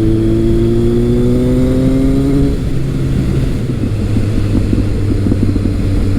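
Kawasaki ZRX1200R inline-four through an ART Pro Series II slip-on exhaust, pulling under throttle with its pitch rising slowly. About two and a half seconds in the throttle closes, and the exhaust burbles on deceleration.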